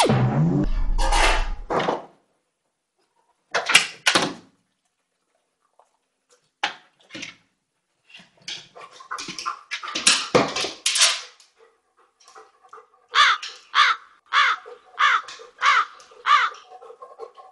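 Dog whining in a run of about six short, falling cries near the end, after bursts of rustling, scraping and knocking as it noses about inside a kitchen cabinet.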